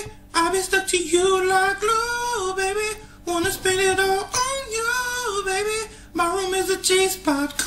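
A young man singing solo in a high, strained voice, his pitch cracking and jumping between held notes, in phrases broken by short breaths.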